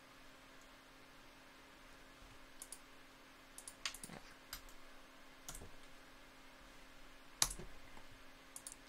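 A few scattered computer mouse and keyboard clicks, the loudest about seven and a half seconds in, over a faint steady hum.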